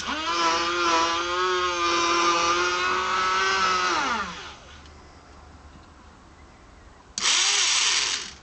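Small electric winch motor and gearing of a toy tower crane whining as it winds the clamshell bucket's hoist line. It runs steadily for about four seconds and winds down with falling pitch, then runs again briefly about seven seconds in.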